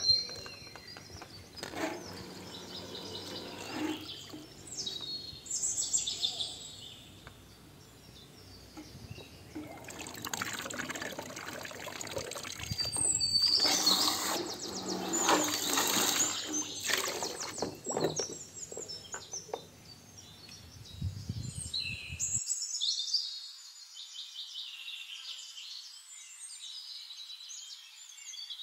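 Water splashing and sloshing in a plastic tub as a submersible pump's float switch is moved around and lifted out, loudest midway, with birds chirping.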